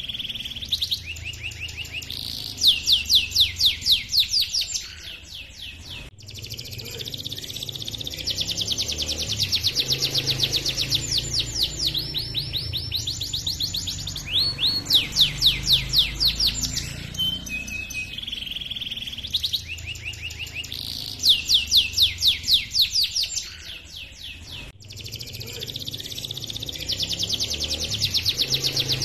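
Canary singing a long rolling song: phrase after phrase of rapid trilled chirps, with louder, strongly pulsed runs three times. The same stretch of song repeats, with a sharp click twice where the recording is spliced into a loop.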